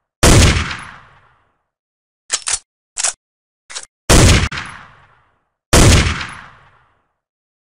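Three gunshots from a rifle or shotgun, each with a long fading echo: one just after the start, one about four seconds in and one about six seconds in. Between the first two shots, a few short clicks of the gun's action being worked to load it.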